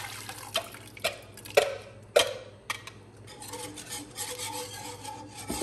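Wire whisk stirring liquid in a metal pan, knocking against the pan's sides about every half second, then softer scraping and swishing. Liquid is still pouring into the pan at the very start.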